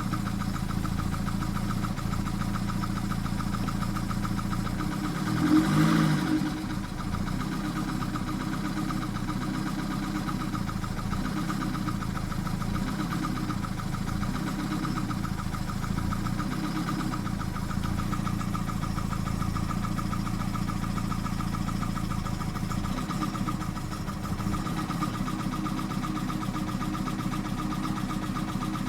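1991 BMW 318i's four-cylinder engine idling roughly, with a slow, uneven pulse in its low note. There is one brief rise in revs about six seconds in.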